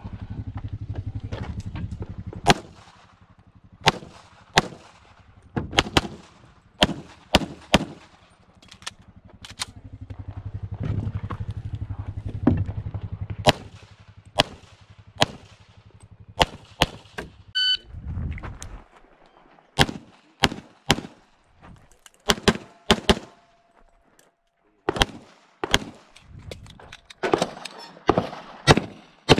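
Strings of rapid pistol shots from an IPSC Standard-division handgun, some two or three shots close together. A short electronic shot-timer start beep sounds a little past halfway, followed by more strings of shots. A low rumble sits under the first half.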